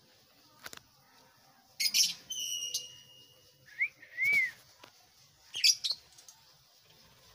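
Budgerigars calling: a harsh chirp about two seconds in, followed by a held whistle, then two short arched chirps and another harsh chirp near six seconds.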